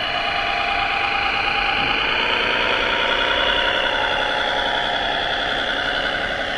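Radio-controlled model New Holland tractor driving through loose dirt, with a steady mechanical running sound that holds an even level throughout.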